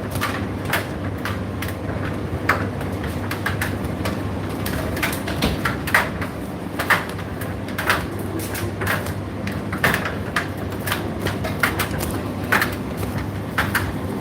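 Indesit IDC8T3 condenser tumble dryer running: a steady motor hum with irregular clicks and knocks from the turning drum.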